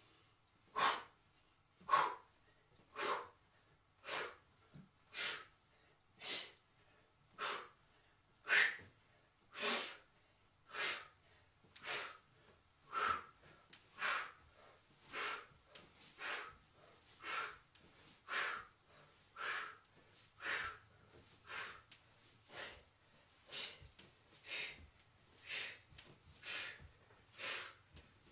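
A man breathing out hard in a steady rhythm, about one sharp exhalation a second, from the effort of doing crunches.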